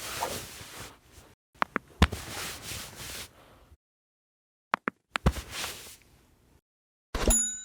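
Small handling sounds: sharp clicks and taps with short stretches of scraping or rustling noise, split up by dead-silent gaps. A brief ringing tone sounds near the end.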